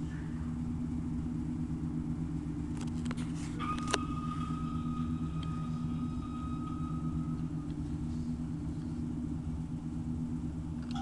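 Star Trek medical scanner replica running its electronic sound effect: a steady low hum. A few sharp clicks come about three to four seconds in, followed by a thin high tone held for about four seconds.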